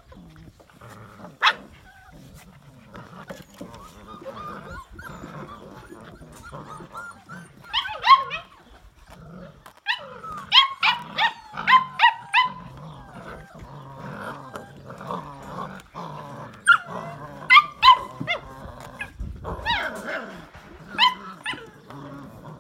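Six-week-old Belgian Malinois puppies yipping and growling as they tug at a cloth in play. Short high-pitched yips come in clusters, with a quick run of several about ten seconds in, over a low steady growling.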